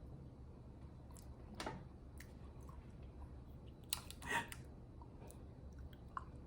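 A person chewing food close to the microphone: soft mouth clicks and smacks, with a louder cluster of crunching about four seconds in.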